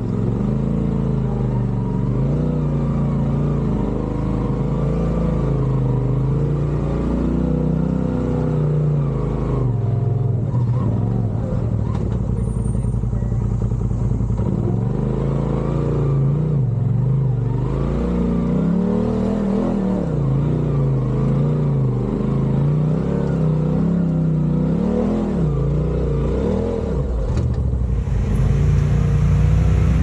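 Polaris RZR side-by-side's turbocharged twin-cylinder engine running at low speed, its pitch rising and falling every second or two as the throttle is worked over rough trail, with a sharp knock near the end.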